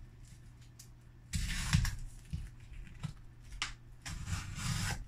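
Small cardboard box being opened by hand: two stretches of cardboard scraping and rustling, about a second in and near the end, with a few light taps in between.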